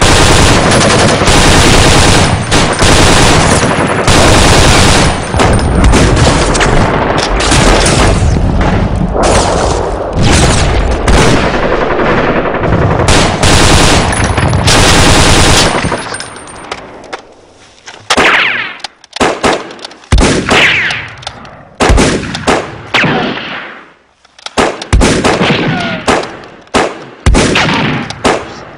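Gunfire sound effects: sustained rapid automatic fire for about the first half, then breaking into separate shots and short bursts with pauses between them.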